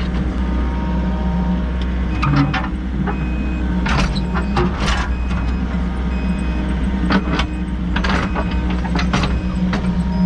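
Volvo EC60E mini excavator's diesel engine running steadily, with several sharp scrapes and knocks from the bucket working the soil.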